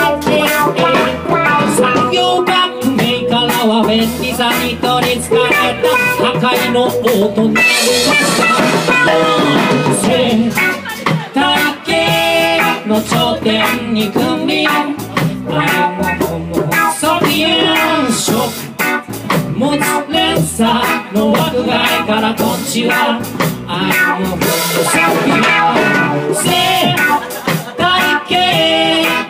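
Live reggae band playing, with guitar and drum kit on a steady beat and a man singing over it.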